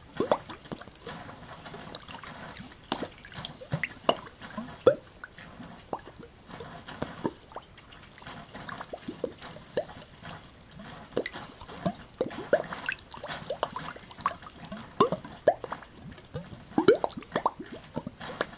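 Spring water spouting from a pipe in irregular spurts: a quick, uneven run of plops and drips, many with a short upward-sliding pitch, over a faint water hiss.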